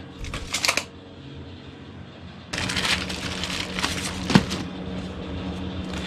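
Paper crackling and rustling as the glossy Energy Guide sheet is handled, with a brief rustle near the start and denser crackling from about halfway in, over a steady low hum.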